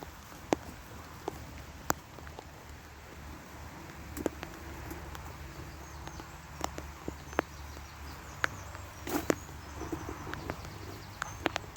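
Raindrops tapping a hard surface near the microphone: scattered sharp ticks at irregular intervals, over a steady low hum.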